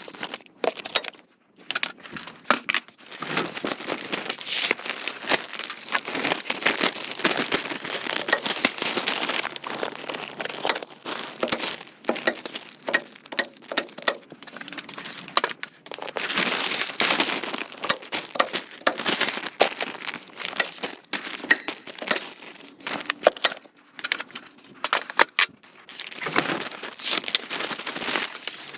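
4 mil polyethylene vapor-barrier sheeting crinkling and rustling as it is handled and pulled into place, with many sharp clicks and knocks.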